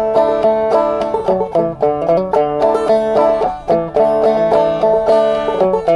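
Clawhammer banjo playing a fiddle tune solo, a quick steady run of bright plucked notes with a drone string ringing under the melody.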